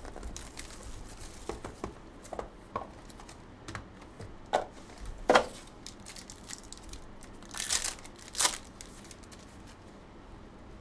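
Foil wrapper of a Panini Court Kings basketball card pack being torn open and crinkled. A series of sharp taps and clicks of hands and cards comes first, then two louder ripping, crinkling bursts about three-quarters of the way in.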